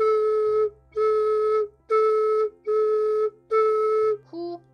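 Flute headjoint played on its own, its end stopped with the palm: five separate notes on the same steady pitch, each started with a 'tu' tongue attack and lasting about half a second. A brief voice sound comes near the end.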